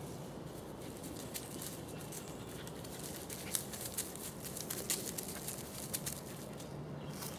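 A poodle rooting through dry leaf litter on the forest floor: leaves rustle and crackle in many short, irregular clicks over a steady low hiss.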